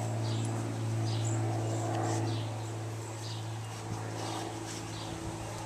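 A steady low motor hum, with short faint hissing sounds repeating about twice a second over the first half.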